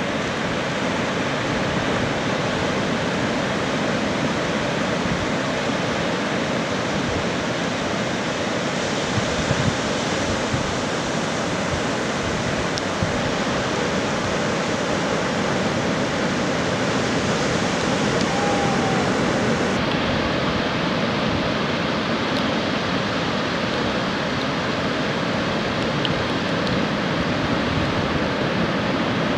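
Heavy surf from a hurricane swell breaking on a beach: a loud, steady rush of crashing and churning water.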